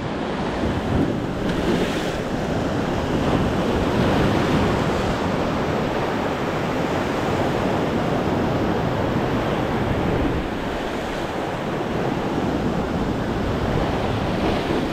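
Ocean surf breaking and washing over shoreline rocks in a rising swell, a continuous rushing roar of foaming water.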